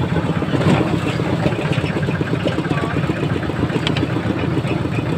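Small motorcycle engine running steadily while riding along, with a fast, even putter that holds the same pace throughout.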